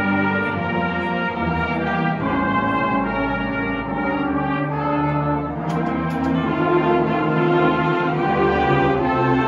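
A large high school concert band plays live, brass to the fore over woodwinds and low percussion, in held chords that change every second or two. A few sharp percussion strikes come about six seconds in.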